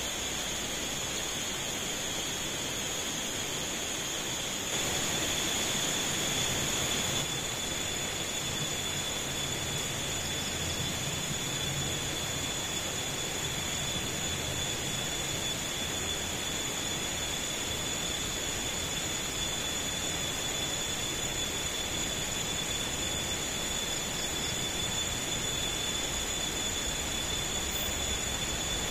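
Stream water flowing with a steady rushing sound, and insects keeping up a continuous high drone in two steady pitches. The rush swells briefly about five seconds in.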